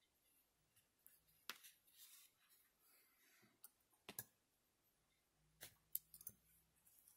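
Faint handling noise from sewing crocheted amigurumi pieces together with a yarn needle: a few scattered light clicks, the sharpest near the end, and brief soft rustling of yarn and fabric.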